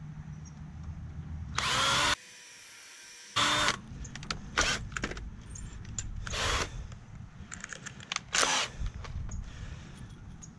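Cordless drill running in several short bursts, driving screws into 2x4 lumber, with small clicks and knocks between the bursts.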